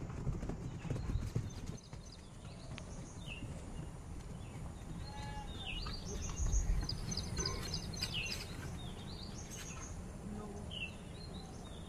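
Hoofbeats of a ridden horse on grass, loudest in the first couple of seconds and then fainter. Short high chirps come and go in the second half.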